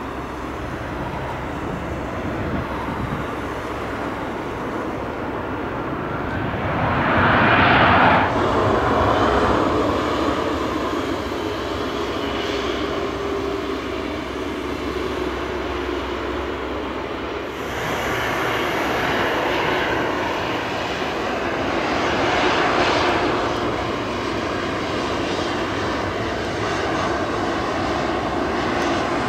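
Airbus A321 airliner's CFM56 jet engines running during landing rollout and taxi: a steady jet noise that swells loudest about eight seconds in and again a little over twenty seconds in, changing abruptly twice.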